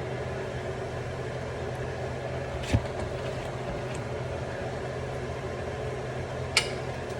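Steady low hum of a running kitchen appliance, with two light knocks, one near the middle and one near the end.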